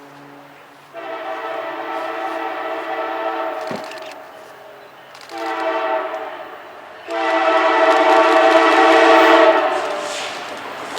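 Approaching diesel locomotive's multi-chime air horn sounding three blasts, long, short, then a long and loudest one. Near the end the rumble of the oncoming train builds.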